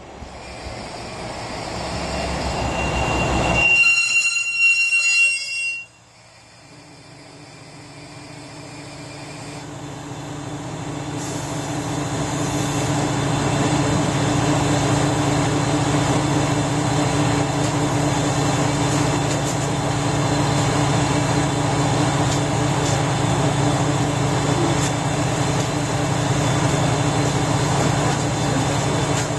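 KiHa 120 diesel railcar pulling in and braking, its brakes squealing in a high ringing tone for about two seconds before the sound cuts off suddenly about six seconds in. Then its diesel engine idles steadily at the platform.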